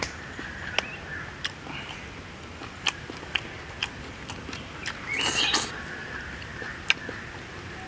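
Eating close up: wooden chopsticks clicking sharply against the plate every second or so, with chewing, and a short rising bird call about five seconds in.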